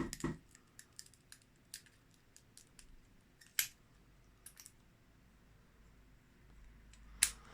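Lock pick worked roughly against the pins in the keyway of an aluminium Master Lock padlock: a string of faint, irregular metallic clicks and ticks, with a louder click about three and a half seconds in and a sharp one near the end.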